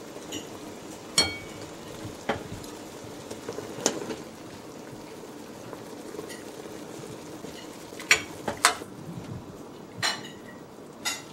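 Metal ladle clinking against the stockpot and the soup bowl as soup is ladled out, over a steady bubbling of soup at a full boil. Sharp, ringing clinks come about a second in, at about two and four seconds, and twice close together a little past eight seconds.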